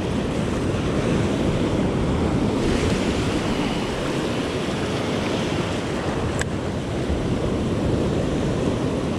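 Surf breaking and washing over the sandy shallows, steady throughout, with wind buffeting the microphone. A single sharp click comes about six seconds in.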